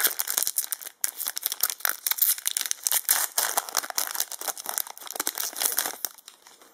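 Yu-Gi-Oh booster pack wrapper crinkling and tearing as it is opened, a dense run of crackles that dies away about six seconds in.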